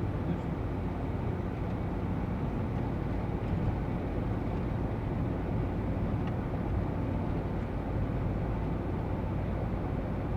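Steady road and engine noise inside a GAZ Sobol van's cabin while it drives along at a constant speed.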